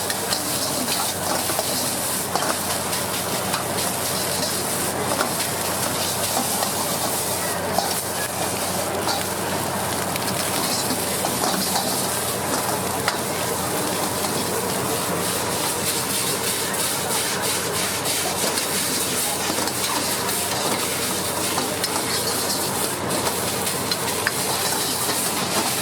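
Food sizzling steadily in a hot wok while being stir-fried, with frequent small clicks and scrapes of a metal spatula against the wok.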